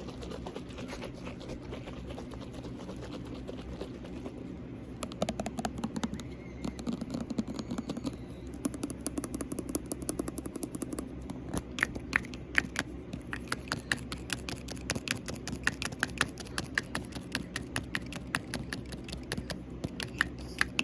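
A small bottle of argan hair oil handled and shaken for ASMR liquid sounds: from about five seconds in, a fast, irregular run of small clicks and taps that grows denser. A room fan hums steadily underneath.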